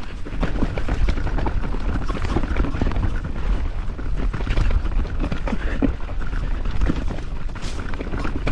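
Mountain bike rattling over a rough trail, with many irregular knocks and clicks from the bike and tyres, over a steady low rumble of wind on the microphone.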